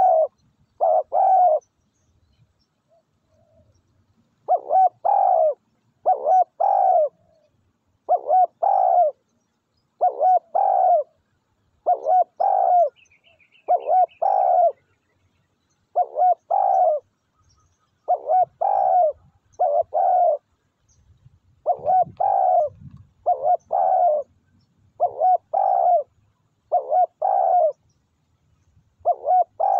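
Spotted dove cooing: short phrases of two or three notes repeated about every one to two seconds, with a pause of a few seconds near the start.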